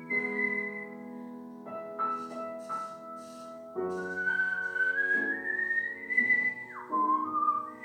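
A whistled melody over a piano accompaniment, the whistle a single pure line that glides slowly upward, then drops sharply near the end, with piano chords sounding beneath it.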